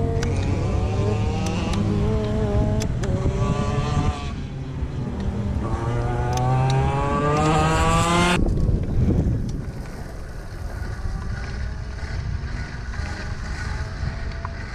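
Two-stroke race kart engine revving up twice under acceleration, then cutting out abruptly about eight seconds in. Only wind and rolling noise remain as the kart coasts. The engine has stalled, a failure the mechanic traces to broken carbon-fibre reed-valve petals (flappers) on the intake.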